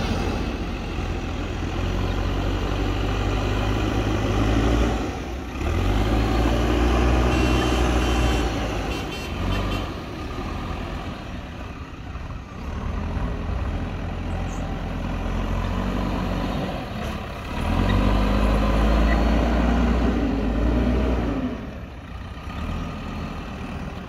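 Diesel engines of a JCB backhoe loader and a tipping tractor running. The engine note twice rises into a loud, labouring rumble, about six seconds in and again about eighteen seconds in, then drops back lower near the end.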